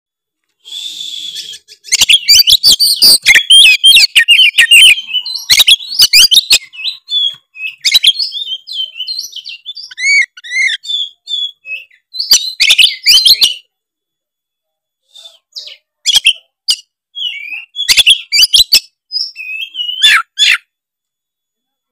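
Oriental magpie-robin (kacer) in full, energetic 'gacor' song: loud bursts of whistled notes, rapid chattering trills and sharp clicking calls, broken by short pauses. This is the kind of song played to draw a response from other magpie-robins.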